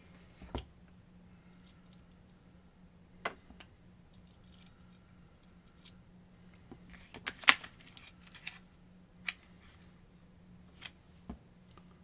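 Sparse sharp clicks and taps of small hard parts of a rotary tool being handled, with the busiest, loudest run of clicks about seven seconds in. A faint steady hum sits underneath.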